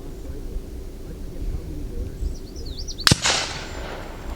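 One fullbore target rifle shot about three seconds in: a single sharp report whose echo dies away over about a second.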